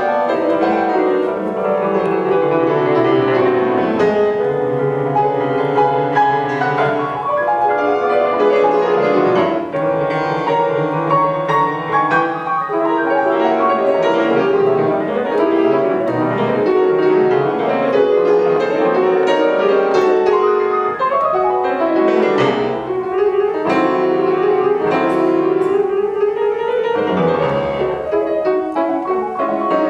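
Piano music: a continuous flowing passage of many notes, with rising runs in the second half.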